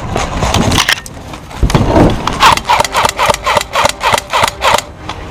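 Airsoft gun firing a rapid string of sharp snapping shots, about four a second, for roughly two and a half seconds, after a few scattered clicks.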